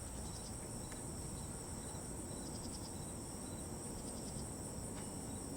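Insects chirping steadily and high-pitched, with short repeated ticks over a faint low background hum.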